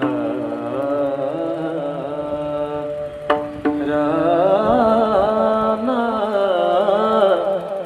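Marathi kirtan devotional music: a melody sung without clear words over held accompanying notes, the line turning wavering and ornamented about halfway through. Two sharp percussion strikes land a little past three seconds in.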